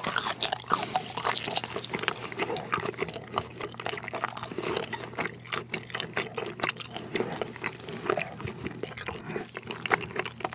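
Close-up wet, sticky chewing of a soft, chewy rice cake (tteok) filled with hotteok-flavoured syrup: dense, irregular mouth smacks and squelches.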